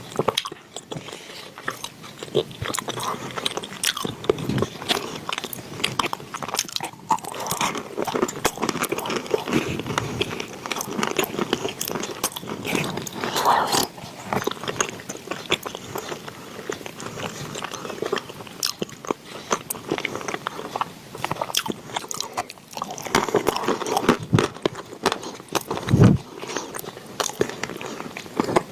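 Close-miked crunching and chewing of wet chalk: a dense, irregular run of sharp crackles and crunches as the pieces are bitten and chewed.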